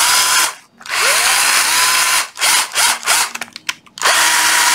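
Ryobi 12V cordless drill motor run in a series of trigger pulls: short blips, then a longer run about a second in whose whine rises as it spins up, and another near the end, as the variable-speed trigger is tested.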